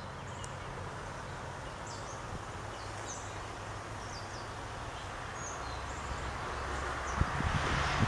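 Outdoor ambience: a steady low rumble that slowly grows louder, with short bird chirps scattered throughout and wind buffeting the microphone near the end.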